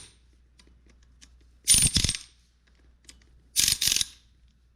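Impact driver fired in two short bursts a couple of seconds apart, lightly running down the small bolts of a new water pump so as not to strip their threads.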